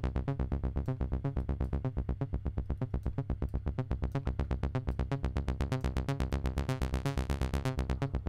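A sequenced synth line from a Reaktor Blocks modular patch (oscillator, filter and VCA driven by an 8-step sequencer at 124 BPM), playing a fast even run of short notes, about eight a second, over a steady low tone. It grows brighter from about six seconds in as the filter is adjusted.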